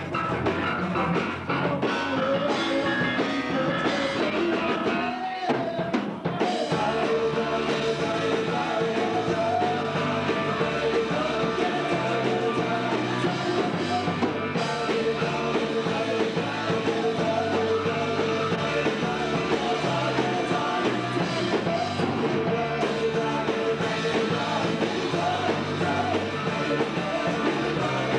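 Live rock band playing: electric guitar, bass guitar and drum kit, with a brief break about five seconds in.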